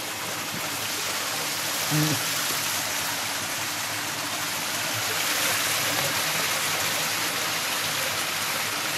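A steady rushing hiss like running water, swelling slightly through the middle, with one short low sound about two seconds in.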